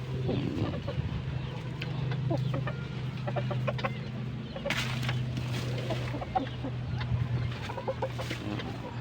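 Bangkok gamecocks clucking softly in short scattered calls, over a steady low hum. The birds' breathing is free of the ngorok snore, a respiratory illness that the owner says has cleared.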